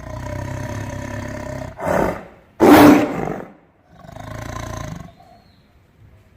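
A big cat roaring: a series of four low calls, the loudest about two and a half seconds in.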